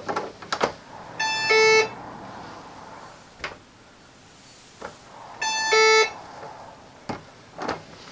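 Burglar alarm door chime sounding twice through a newly fitted replacement internal speaker, each chime a higher electronic note stepping down to a lower one, loud now that the failed speaker has been swapped out. Clicks and knocks of the front door being opened and shut come before, between and after.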